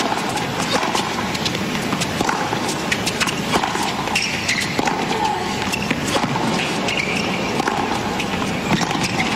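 Tennis rally on a hard court: a run of racket strikes on the ball, each a sharp pop, with short vocal grunts from the players on their shots over a steady background of the crowd and broadcast hiss.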